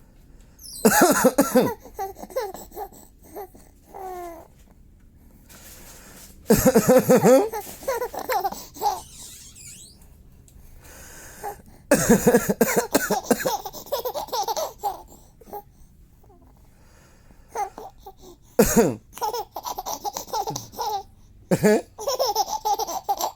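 A man coughing in short bouts, about five times, and a baby answering with bursts of laughter after each.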